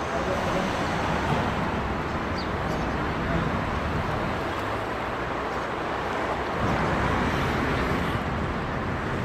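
Steady traffic noise of a busy street, with indistinct voices mixed in.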